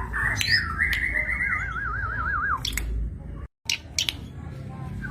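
Cici padi (zitting cisticola) singing: a run of chirps going into a fast wavering trill that breaks off about two and a half seconds in, with sharp clicks between phrases. The sound cuts out briefly about three and a half seconds in, and softer chirping comes back near the end.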